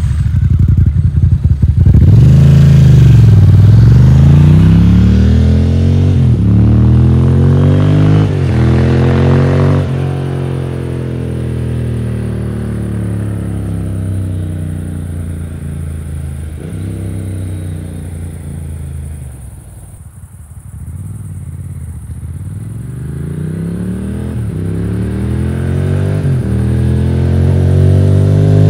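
1999 Ducati Monster 900S's air-cooled 900 cc L-twin running on its stand through Termignoni exhausts, with a few brief throttle blips. It is loudest near the start, quietest about two-thirds of the way through, and grows louder again toward the end.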